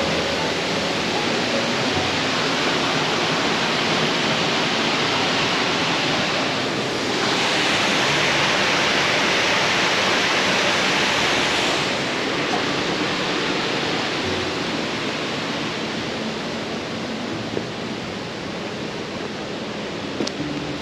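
Waterfall rushing steadily, growing louder for about five seconds midway through before settling back.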